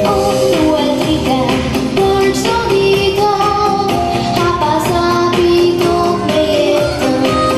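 A young girl singing an Albanian children's pop song into a microphone, holding melodic notes over an orchestrated instrumental backing with a steady beat.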